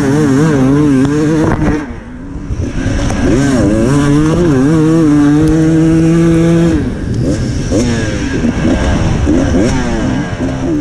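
Dirt bike engine under hard throttle, heard from the rider's own bike: revs dip briefly about two seconds in, climb and hold flat out for a couple of seconds, then drop back near seven seconds and rise again.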